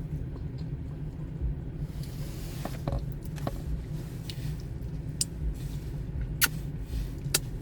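A steady low mechanical hum, with a few sharp clicks about a second apart in the second half.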